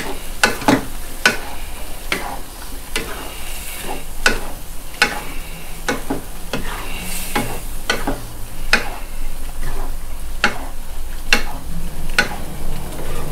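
Shrimp and squid stir-frying in chili-paste sauce in a wok, sizzling steadily while a wooden spatula scrapes and turns it, one stroke about every three-quarters of a second.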